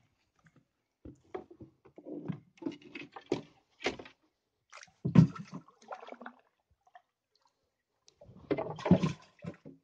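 Water splashing and sloshing close to the microphone in irregular bursts: a long spell from about a second in to about six and a half seconds, then a shorter one near the end.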